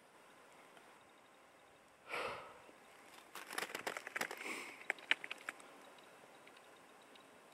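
A short sniff or breath close to the microphone about two seconds in, then a scatter of sharp crackles and clicks for about two and a half seconds, the loudest just after five seconds in.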